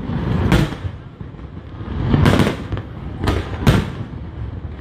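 Aerial fireworks bursting overhead: a sharp bang about half a second in, another around two and a half seconds, and two in quick succession past three seconds, with a low rumble between them.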